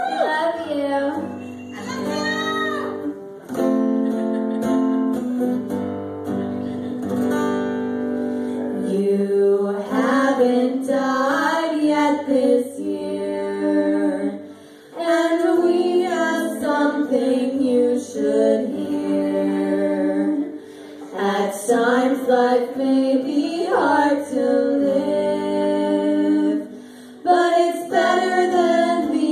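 A female vocal duo singing with an acoustic guitar accompaniment: steady guitar chords under two women's voices.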